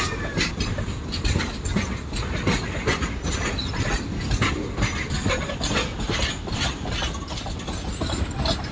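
Indian Railways container freight train rolling past close by: a steady rumble from the wagon wheels, with frequent irregular clacks as the wheels run over the rails.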